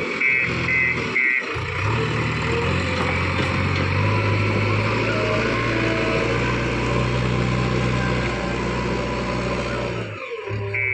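A heavy diesel engine running steadily, its note lifting slightly a few seconds in. Background music plays for about the first second and a half and returns near the end.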